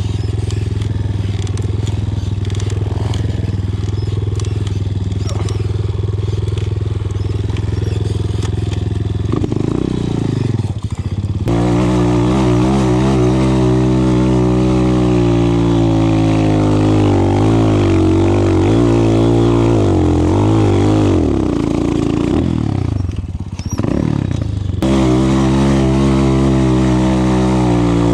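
A 250 cc enduro motorcycle engine running steadily at first, then revving up and down as the bike is ridden, its pitch rising and falling. It dips briefly near the end, then runs steadily again.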